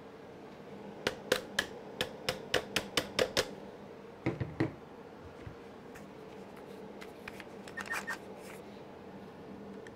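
A quick run of about ten sharp clicks over two or three seconds, then three more and a few fainter ones later. These are screws and small metal parts being handled and fitted by hand as an aluminium rear chassis brace goes onto an RC monster truck's chassis.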